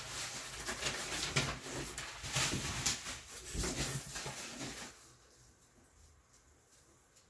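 Plastic bubble wrap being handled and pulled out of a cardboard shipping box, crinkling and rustling irregularly, stopping about five seconds in.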